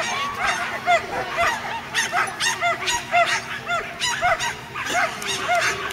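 Several dogs barking at once: short, high, rapid barks about three a second, with other barks overlapping at different pitches.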